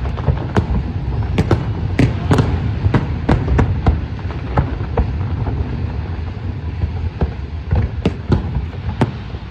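Aerial fireworks display: a rapid, irregular run of sharp bangs over a continuous low rumble. The bangs come thickly at first, thin out around the middle, and pick up again near the end.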